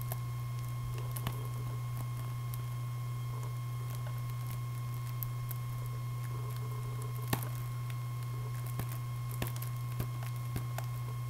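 Steady low electrical hum with a faint higher steady tone, broken by a few small sharp clicks and ticks of a plastic Blu-ray case being handled, the loudest a little past the middle.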